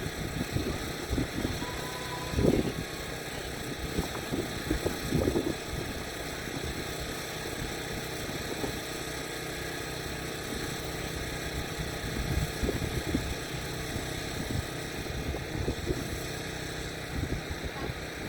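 Wind buffeting the microphone outdoors: a steady low rumble with irregular gusts, stronger in the first few seconds and again near the end.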